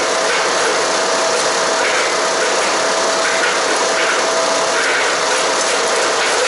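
Haige 15 hp wood chipper running and shredding cedar and cypress branches: a loud, steady mechanical din with a constant whine and uneven crackling bursts as the wood is chewed up.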